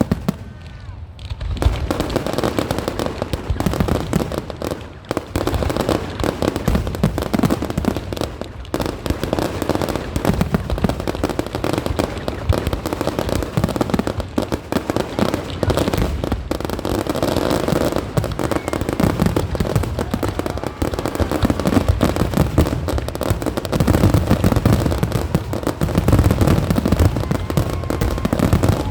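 Fireworks display: a dense, unbroken barrage of shell bursts and crackling with low booms, getting louder over the last few seconds.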